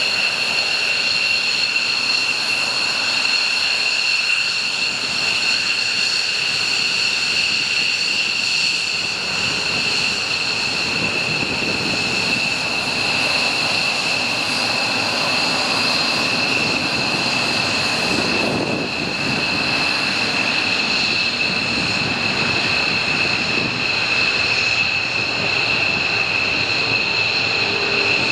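Twin turbofan engines of a JASDF F-15J fighter at taxi power: a steady high whine over a rushing jet noise. The rush swells about two-thirds of the way in as the jet passes close.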